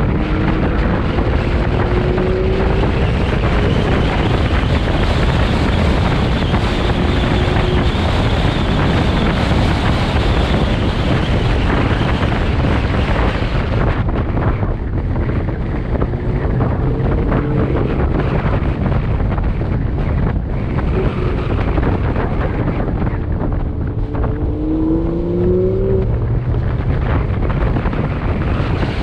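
Car driving at speed with heavy wind noise on the microphone. The engine's pitch rises and falls with the throttle, climbing clearly in revs near the start and again about three-quarters of the way through.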